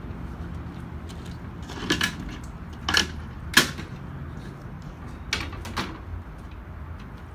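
About six sharp knocks and clacks in two loose groups, the loudest in the middle, over a steady low hum.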